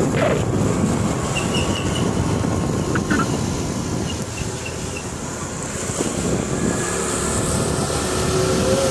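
Steady wind rush over the microphone and road noise from riding on an open two-wheeler, a motorbike or scooter.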